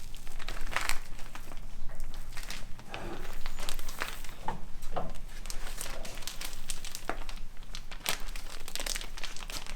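Irregular crinkling and rustling as carbon-fibre layup materials are handled and pressed by hand.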